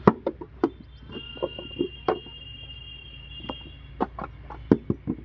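Wet clay being slapped into wooden brick moulds, and the moulds knocked against the ground, as bricks are moulded by hand: a string of irregular sharp knocks and slaps. A steady high tone hangs for a couple of seconds about a second in.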